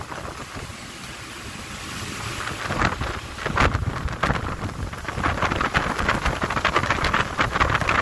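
Wind buffeting the microphone on a 145 ft motor yacht running at full ahead, over a low rumble and the rush of water. It grows louder and gustier from about three seconds in.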